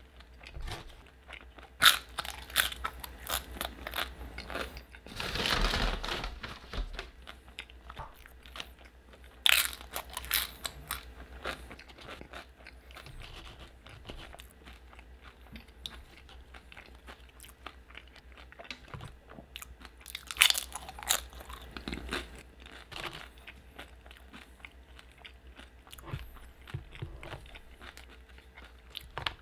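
Tortilla chips being bitten and chewed close to the microphone. Sharp crunches come in several bursts, with softer chewing between them.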